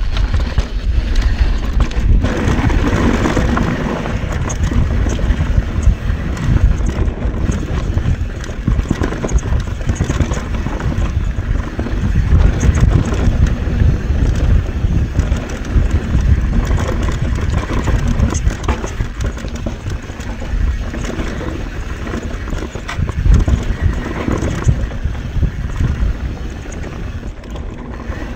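Mountain bike descending a rough trail at speed: continuous tyre rumble and a dense clatter of the chain and frame over the bumps, with wind on the microphone.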